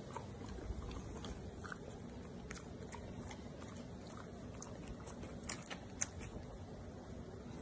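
English bulldog chewing crunchy snacks: faint, irregular crunches and clicks, with two louder crunches about five and a half and six seconds in.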